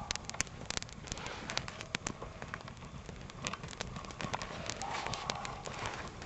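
Campfire of dry spruce branches burning and crackling, with many irregular sharp pops and snaps.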